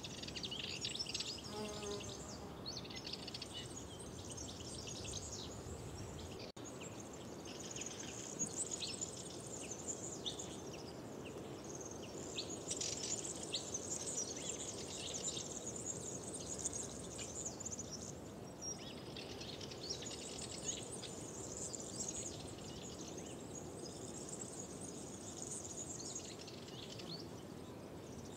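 Several songbirds singing and chirping at once in a dense, overlapping chorus, over a steady background rush of outdoor noise. The sound drops out briefly about six seconds in.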